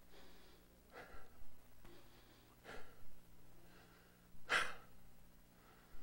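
A man breathing hard between sentences, a handful of short breaths, the sharpest a loud exhale about four and a half seconds in, over a faint low electrical hum.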